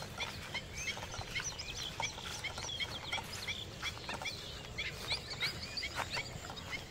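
Birds chirping: a rapid series of short high chirps, several a second, with a few faint clicks.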